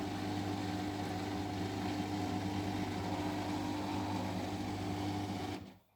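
Siemens front-loading washing machine running with a steady hum, which cuts off abruptly near the end.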